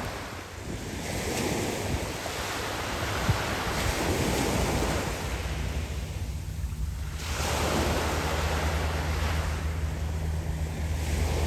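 Small sea waves breaking and washing up a pebble beach, the surf swelling and falling back about every two to three seconds.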